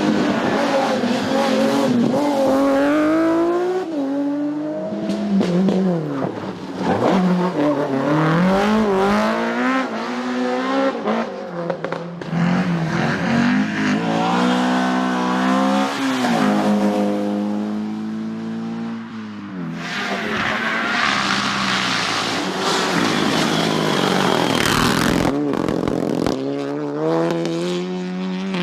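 Rally cars driven hard on a stage, engines revving up and dropping back again and again through gear changes as they pass. There is a stretch of louder rushing noise about two-thirds of the way through.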